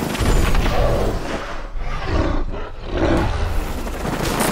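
Giant ape roaring: a deep roar in several surges over a heavy low rumble, as a film effect.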